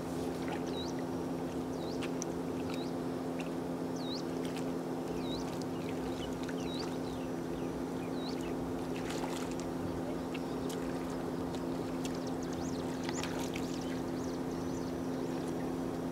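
A steady low drone of several fixed pitches holds throughout. Over it come short repeated bird chirps, about one a second in the first half, and a few light splashes of water as hands grope in a muddy puddle.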